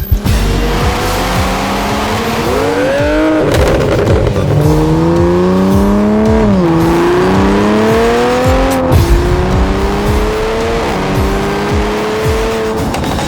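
Toyota Supra A90's turbocharged 3.0-litre inline-six through an ARK DT-S exhaust with catless downpipe, accelerating hard through the gears. The engine note rises steadily in pitch and falls back at each of four upshifts.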